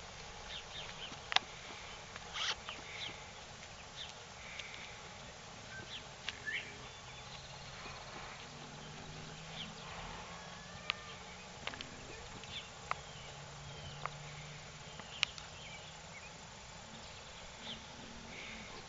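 Open-air pasture ambience: scattered bird chirps and insect noise over a steady hiss, with a few sharp ticks and knocks, the loudest about a second and a half in. A faint low hum comes and goes in the middle.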